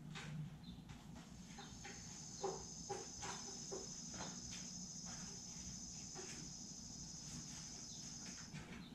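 A steady high insect trill starts about a second in and stops shortly before the end. Scattered light clicks and taps come from car parts being handled at the front end.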